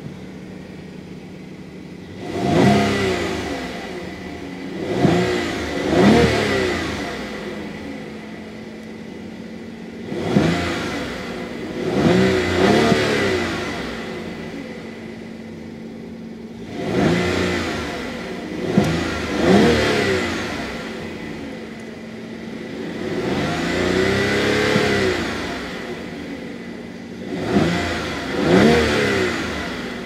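2014 Rolls-Royce Wraith's twin-turbo V12 idling between about a dozen quick free revs, mostly in pairs and threes, each rising and falling back to idle, with one longer, held rev about 24 seconds in. Heard from the driver's seat.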